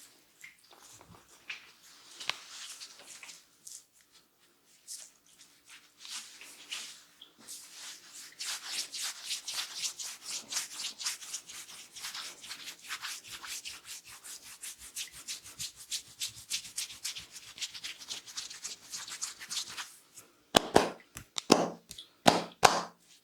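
Hands rubbing and scratching briskly over the scalp and hair in fast, even strokes during a head massage. Near the end comes a short run of loud, sharp hand strikes on the head.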